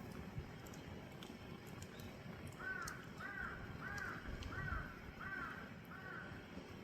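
A bird calling six times in a row, one short arched call roughly every two-thirds of a second, over the faint crackle of a wood fire burning in a firebox.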